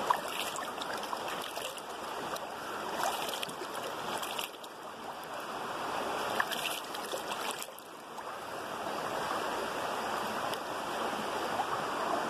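Water of a shallow rocky stream rushing and babbling around the body of someone sitting in it, with small cascades over rocks. The sound is a steady flow noise.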